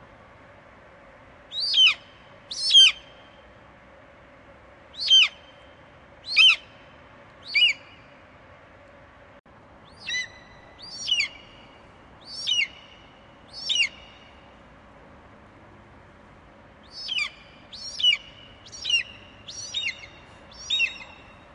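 Bald eagle calling: thin, high-pitched piping notes, each falling in pitch, given in runs of two to six with pauses between, over a faint steady background hum.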